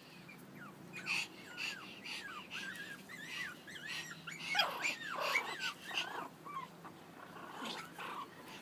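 Pomeranian puppies play-fighting, with a run of short, high-pitched yips and whines that bend up and down in pitch, busiest in the middle.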